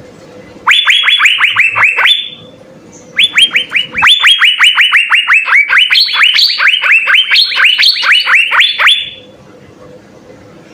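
Asian fairy-bluebird (cucak biru) singing in two runs of rapid, repeated notes, each note sweeping down in pitch. A short run comes about a second in, and a much longer run starts about three seconds in and lasts several seconds.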